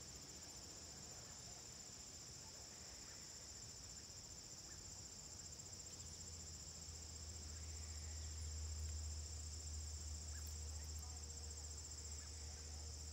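Insects trilling in a steady high-pitched chorus, with a low rumble underneath that grows stronger about seven seconds in.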